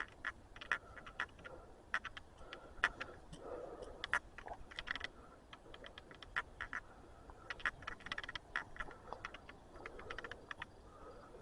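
Footsteps on a woodland trail: irregular light crunches and crackles, coming in loose clusters, the way dry leaves and twigs sound underfoot.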